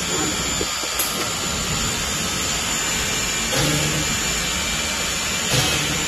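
Nesting CNC router's vertical drilling unit boring holes in a wood panel, over a steady machine hiss. A low hum comes in briefly about three and a half seconds in and again near the end.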